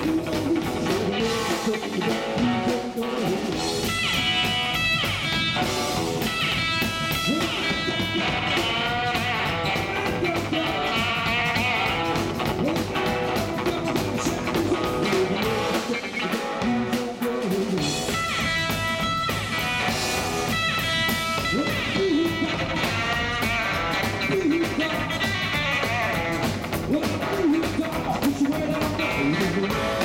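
Rockabilly band playing live: hollow-body electric guitar with upright bass and drum kit.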